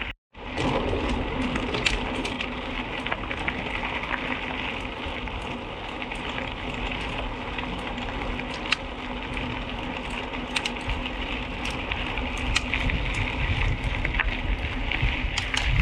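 Mountain bike rolling over a rough crushed-stone road: a continuous crunching, crackling rattle of tyres on loose gravel, with scattered sharper clicks and a low rumble.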